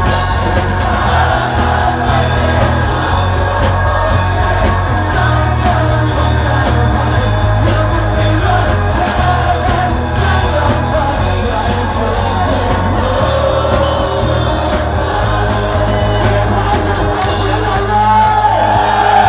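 Loud music with a heavy, steady bass and singing, with voices yelling along.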